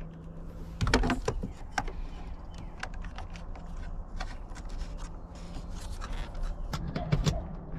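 Scattered clicks, taps and scrapes of hands working with small parts and tools, over a low steady hum.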